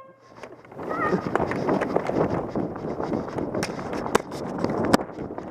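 Players running off at the start of a Nerf game: quick footsteps and gear rustling close to a hat-mounted camera, with a brief shout about a second in and a few sharp knocks later.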